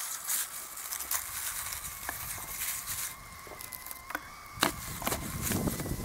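Campfire crackling with scattered sharp pops and clicks, over a faint steady high tone. About five seconds in there is a short stretch of rustling handling noise.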